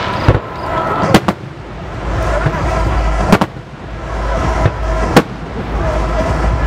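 Aerial firework shells bursting overhead: about five sharp bangs at irregular gaps, two of them close together about a second in.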